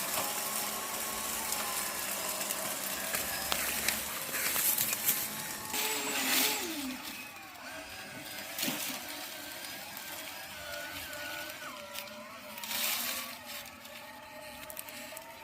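A small motor running steadily, its pitch wavering up and down, with a few short bursts of hiss.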